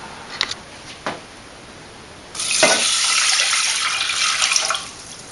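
Water poured from a glass measuring cup into a stainless steel saucepan of dry rice: a steady splashing pour lasting about two and a half seconds, starting a little over two seconds in. A couple of small knocks come before it.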